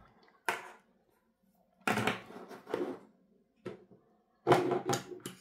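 Hands handling unboxing items on a desk: a series of short knocks, clacks and rustles as the RCA cable is set down and the packing papers are picked up, with a cluster of them near the end.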